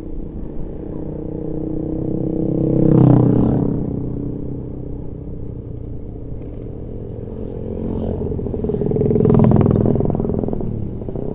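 A vehicle engine running steadily while driving up a steep, winding mountain road. The sound swells louder twice, about three seconds in and again near the end.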